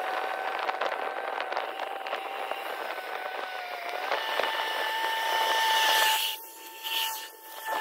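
TYM T474 HST compact diesel tractor running under load while it works wet slush, a steady whine over a rough scraping hiss; the whine steps up a little in pitch about four seconds in.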